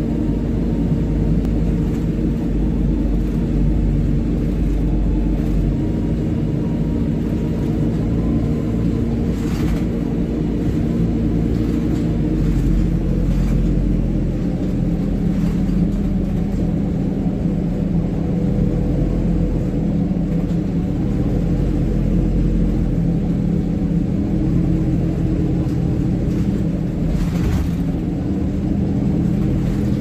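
Rear-mounted diesel engine of an ADL Pointer Dart single-decker bus working hard under way, a loud steady drone with the hoovering whine; its pitch shifts about halfway through as engine speed changes. Two brief knocks, one about a third of the way in and one near the end.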